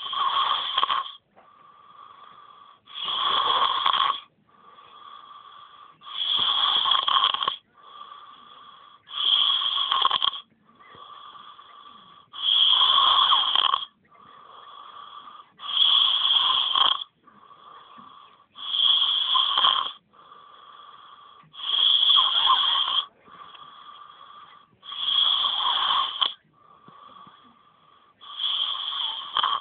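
A sleeping person snoring heavily: a loud snore about every three seconds, each lasting about a second, with a quieter wheezy breath in between. The rhythm is steady.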